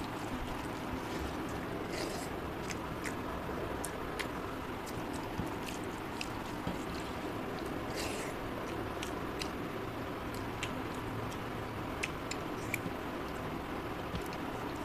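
Rice being squished and mixed with curry by hand on a metal plate, with scattered small wet clicks and chewing, over a steady background hiss.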